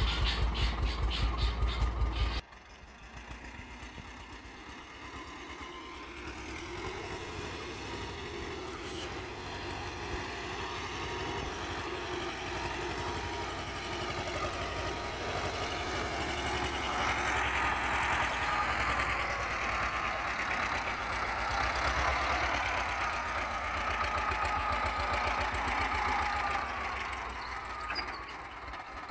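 Vladimirets T-25 tractor's two-cylinder air-cooled diesel running close with an even thudding beat. After a sudden cut about two seconds in it is heard from farther off as the tractor drives over grass, growing louder toward the middle and fading near the end.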